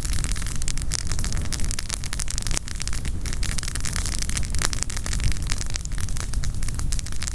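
Campfire of burning firewood crackling, with dense, irregular snaps and pops over a steady low rumble.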